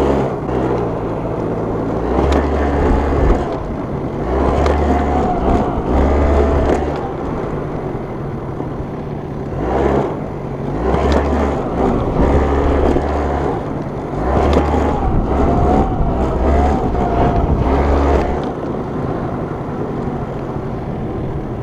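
Yamaha Mint scooter's two-stroke engine running under way, its speed rising and falling again and again as it is ridden.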